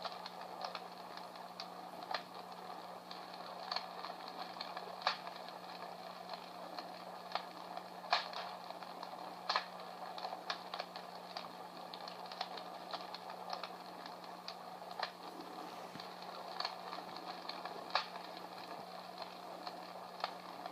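Recorded fire crackling played from a small battery-powered Comfort Smart Fire Crackler speaker: irregular pops and snaps over a steady hiss. A steady low hum runs underneath.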